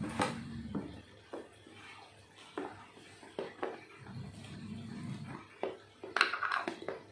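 Scattered clicks and knocks of plastic aquarium filter gear being handled, with a louder clatter about six seconds in as a small plastic tub of GFO media is picked up.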